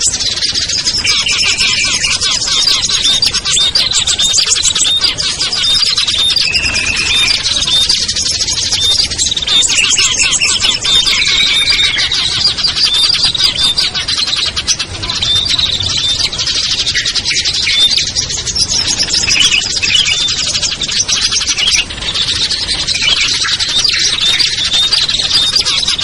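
Dense chorus of many small songbirds on a bird-lure recording. Rapid high chirps and trills overlap without a break, with short lower whistled notes here and there.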